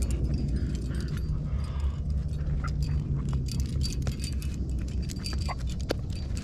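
Metal climbing gear clinking: carabiners and cams knocking together on a harness rack in many small, irregular clicks, over a low steady rumble.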